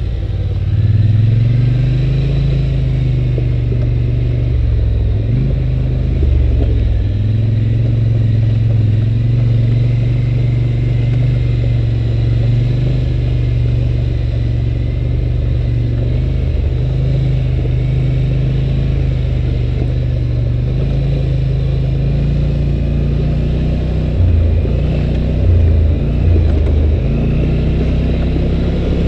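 2011 Polaris Sportsman 850 Touring ATV's twin-cylinder engine running under way, its pitch rising and falling with the throttle, with brief dips in pitch a few seconds in and again near the end.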